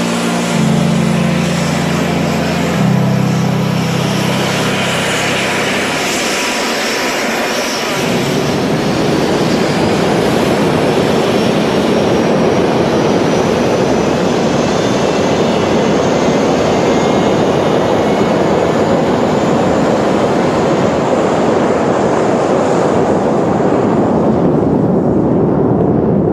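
Music in the first few seconds gives way to the engine noise of A-10 Thunderbolt II jets: the twin General Electric TF34 turbofans make a steady loud rush with a thin whine that slowly rises in pitch. The high end of the sound falls away near the end.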